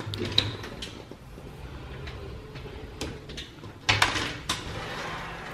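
Mirrored sliding closet doors being moved along their track, with scattered clicks and rattles and a louder clatter about four seconds in.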